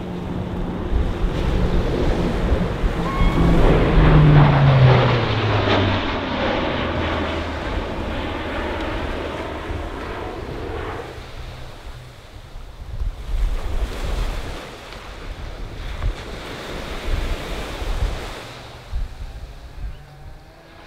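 Lockheed C-130J Super Hercules turboprops droning on a low pass, loudest about four to five seconds in as the engine note drops in pitch, then fading away. Gusty wind on the microphone over surf follows in the second half.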